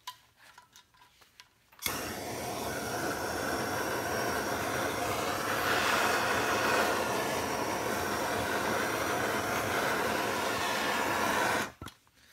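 Electric heat gun switched on about two seconds in, its fan blowing steadily, then switched off near the end, heating the alloy crankcase around a main bearing to loosen it.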